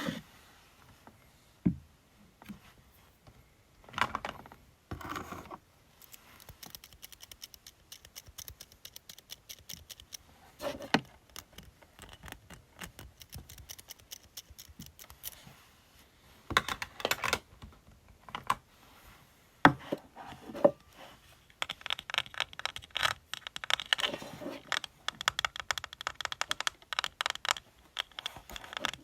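Fingernails tapping and scratching on makeup and cosmetic packaging: scattered taps and short stretches of scratching, then fast, continuous tapping for roughly the last third.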